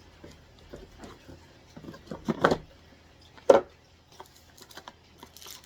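Cardboard game box being handled and opened: scattered taps and rustles, with a sharp knock about three and a half seconds in.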